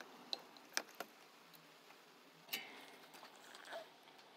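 Several faint, scattered clicks and light taps from hands and small tools working on a circuit board during desoldering, over a low hiss.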